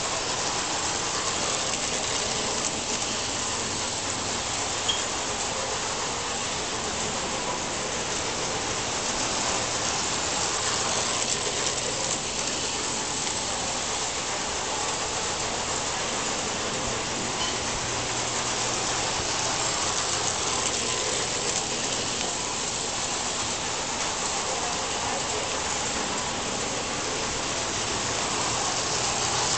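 Standard gauge tinplate model train, a scratch-built McKeen motor car with its trailer car, running steadily on three-rail steel track, the wheels and electric motor giving a continuous rolling hiss.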